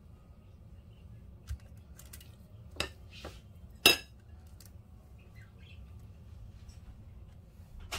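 Kitchenware clinking against ceramic dishes: a dull knock about a second and a half in, then two sharp clinks, the second one near four seconds in the loudest. A low steady room hum runs underneath.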